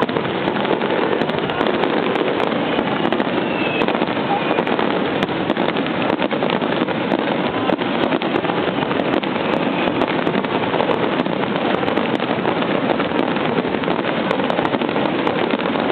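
Starmine fireworks barrage: rapid-fire shells bursting and crackling so densely that the bangs merge into one continuous rattle, with no pause.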